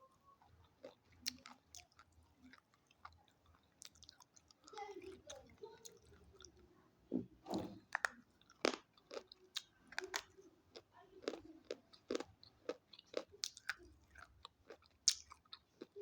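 Close-up biting and chewing of crunchy sticks, with a run of sharp, irregular cracks and crunches.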